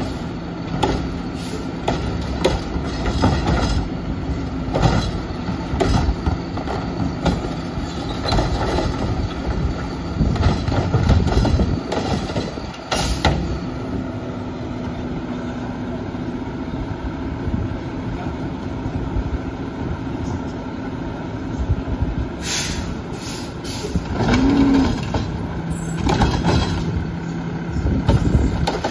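Front-loading garbage truck with a Curotto Can arm running at idle while its hydraulics work the arm to lift and tip recycling carts, with sharp knocks and bangs of the plastic carts against the can several times.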